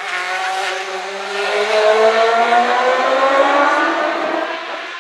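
Racing sidecar outfit's four-stroke, four-cylinder 600cc engine at full throttle, its pitch climbing steadily as it accelerates. It is loudest through the middle and eases off near the end.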